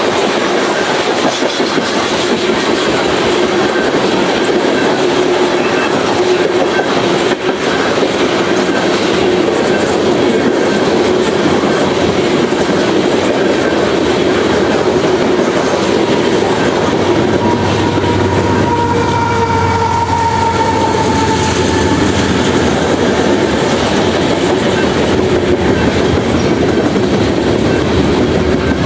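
Canadian Pacific freight train's open-top gondola cars rolling past close by: a steady rumble of wheels on rail with clickety-clack over the joints. About two-thirds of the way through, a thin high squeal from the wheels rises briefly and fades.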